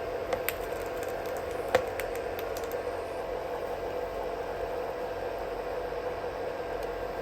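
Steady hum and hiss of room noise, with a few light clicks in the first three seconds, the sharpest just under two seconds in.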